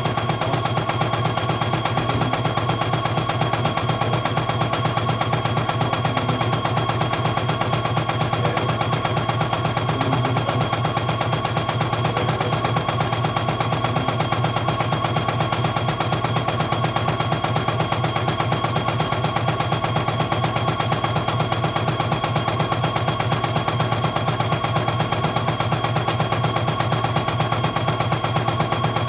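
CNY E900 portable computerised embroidery machine stitching a design, its needle going up and down in a rapid, even clatter with a steady machine hum underneath.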